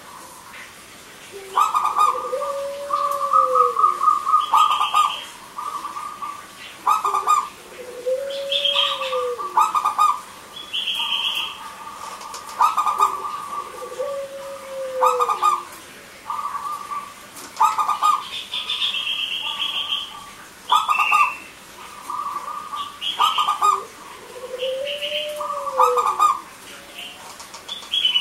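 Zebra dove (perkutut) cooing: bursts of quick staccato notes every two to three seconds, with a lower coo that rises and falls about every six seconds.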